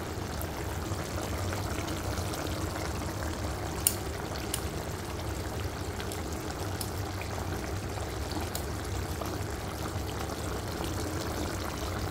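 Chicken and tomato gravy simmering in a karahi, a steady bubbling sizzle with a few faint ticks and one sharper click about four seconds in.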